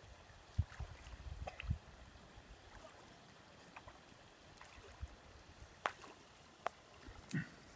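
Faint sloshing and splashing of shallow water as a child wades through it, with a few low thumps in the first couple of seconds and several sharp clicks near the end.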